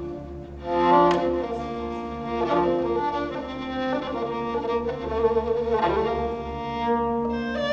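Orchestral music led by bowed strings, sustained melodic lines over a steady low pulse.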